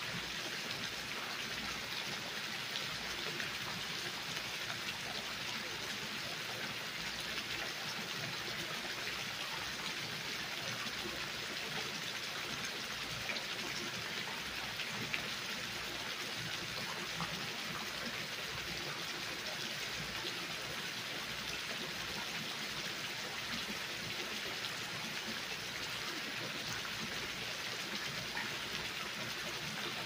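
Water from a granite wall fountain falling down the wall face into a shallow pebble-lined pool: a steady, even splashing.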